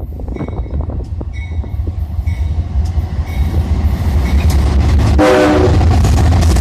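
Strong wind buffeting the microphone while an approaching freight train grows steadily louder. About five seconds in there is a short locomotive horn blast.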